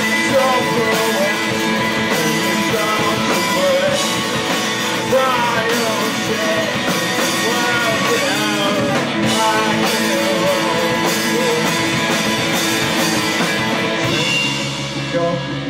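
Live emo/post-hardcore rock band playing loud and steady: electric guitars, bass guitar and drums with cymbal hits. Near the end the cymbals drop away and the guitars ring on.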